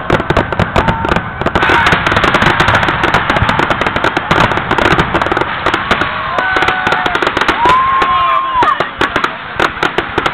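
Aerial fireworks bursting in a dense barrage: rapid, closely packed bangs and crackles with hardly a pause between them, loud throughout.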